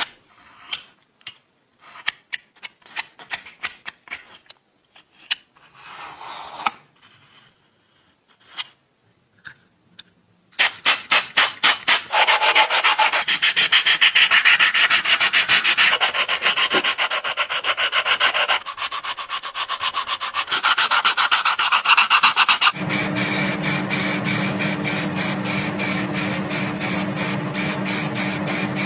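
Scattered light scrapes and clicks, then about ten seconds in, continuous rapid, regular abrasive rubbing strokes, like sanding or filing a part. A steady low hum joins in for the last several seconds.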